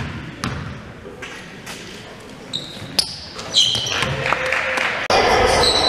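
A basketball bouncing on a hardwood gym floor, several single sharp bounces roughly a second apart, echoing in the hall, then a few short high squeaks. Near the end the sound jumps abruptly to louder gym noise with voices.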